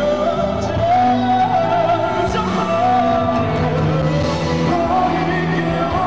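Live concert music: a male singer's voice carries a wavering melody over a band and orchestra.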